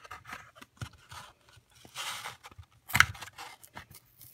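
Hands working at a plastic card blister pack to open it: scattered clicks, scrapes and rustles, with a sharp click about three seconds in.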